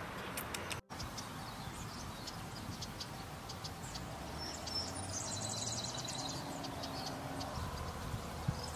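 Outdoor nature ambience: high chirps and fast trills from small birds and insects over a steady hiss. The sound cuts out completely for a moment about a second in.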